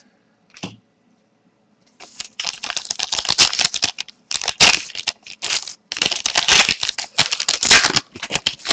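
Foil wrapper of a Zenith hockey card pack crinkling and tearing as it is torn open by hand, in quick rustling bursts from about two seconds in until near the end.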